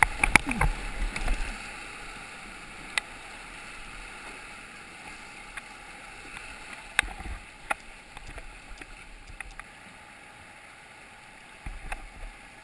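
Rushing whitewater around a plastic sit-on-top kayak running a river rapid, with sharp splashes and knocks of the paddle strokes, thickest in the first second and a half. The water noise eases through the middle, broken by a few single splashes, and picks up briefly near the end.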